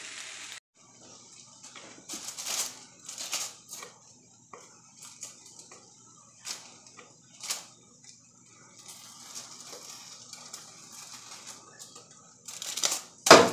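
Scattered soft knocks and clicks as roasted tomatillos are picked off aluminium foil by hand and dropped one at a time into a blender jar, with a louder rustle near the end.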